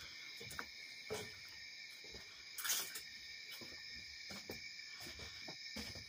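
A steady, high-pitched trill of night insects, crickets, with irregular soft knocks of footsteps on a wooden deck.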